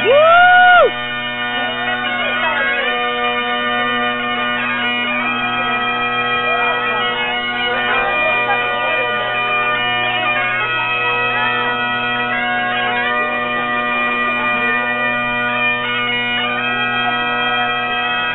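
Two sets of Great Highland bagpipes playing together: a steady drone under a fast, ornamented chanter melody. In the first second a brief, loud rising sound rides over the pipes and then cuts off.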